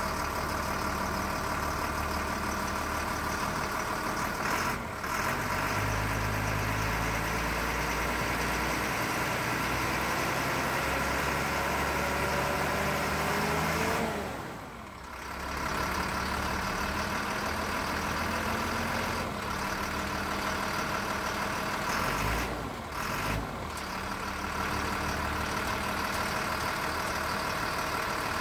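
Caterpillar six-cylinder turbo diesel in a 1993 Chevrolet medium-duty truck running. It idles, its revs climb slowly for several seconds, and about halfway through they drop back to a steady idle.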